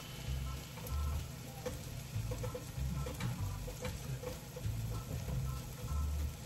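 Food frying in a pan, a steady sizzle with scattered crackling pops, under background music with deep bass notes.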